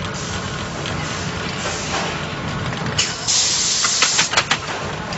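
Tyre building machine running, with a short blast of compressed-air hiss about three seconds in, followed by a quick run of sharp clicks and knocks.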